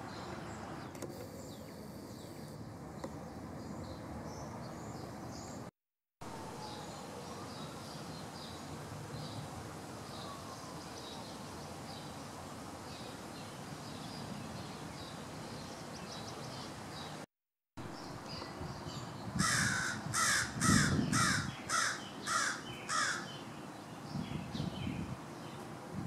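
American crow cawing: a quick run of about eight loud caws, starting about three-quarters of the way in. Faint small-bird chirps come before the caws.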